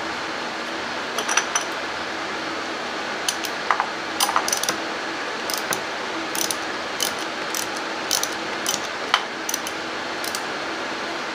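Hand ratchet clicking in short, irregular runs of ticks while working on the spark plugs under the ignition coils.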